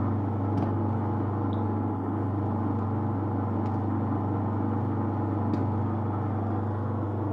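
Electric motor of a car-wiring training rig running, belt-driving the alternator with a steady electric hum and a few faint clicks.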